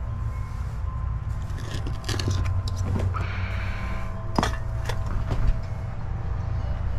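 A steady low mechanical drone underneath, with a handful of sharp knocks and clinks from about two seconds in, the loudest a little after four seconds, from a PVC drain pipe and a concrete paver being handled.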